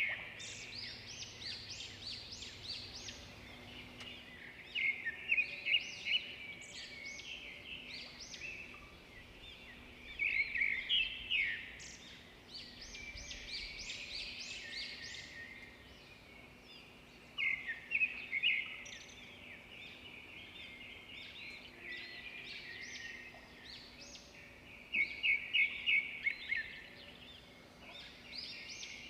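Songbirds singing: bursts of quick, high chirping notes in phrases every few seconds, over a faint steady background hum.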